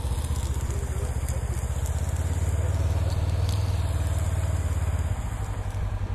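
Side-by-side utility vehicle's engine idling close by: a steady low throb that eases slightly near the end.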